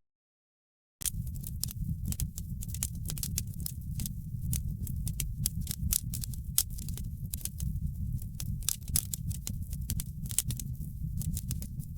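Wood fire in a fireplace crackling, with a steady low rumble of flame under many quick, irregular pops and snaps. The sound drops out completely for about the first second, then comes straight back.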